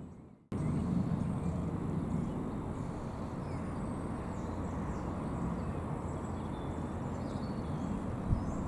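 After a half-second gap, a steady low background rumble sets in, with faint small-bird chirps over it.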